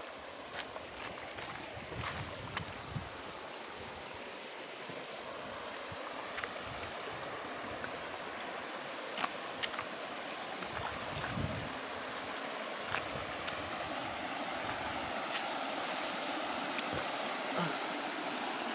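Shallow river water rushing over rock slabs, a steady rush that grows slightly louder toward the end, with a few scattered small clicks and knocks.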